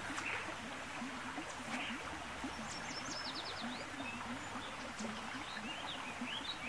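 Creek water running steadily, with small birds chirping over it: a quick string of high falling notes about three seconds in and a few rising chirps near the end.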